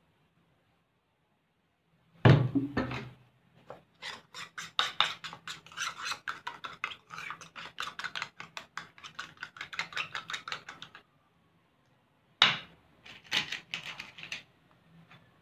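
Metal spoon stirring glue in a ceramic bowl, clicking rapidly against the bowl for several seconds, with a shorter run of clicks near the end. A single thump sounds about two seconds in.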